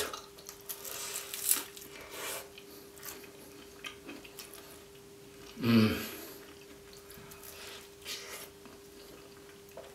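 Close-up eating sounds: biting into and chewing a cheese-filled meat pie, with small crunchy clicks from the pastry. There is one louder mouth sound about six seconds in.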